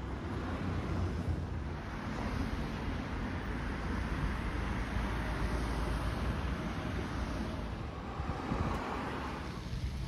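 Street traffic: cars passing on a road, their tyre noise swelling about two seconds in and again near the end, over a low rumble of wind on the microphone.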